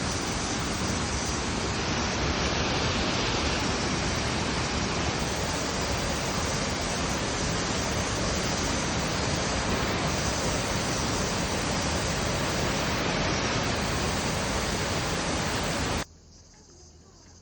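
Rushing water of a waterfall, a loud, steady, even wash of noise. About sixteen seconds in it cuts off abruptly, leaving a much quieter background with a faint, high, steady insect chirr.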